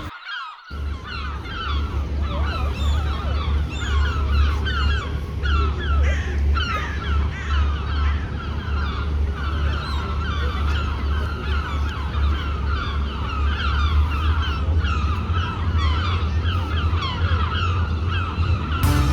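A flock of birds calling constantly, many short calls overlapping, over a steady low rumble.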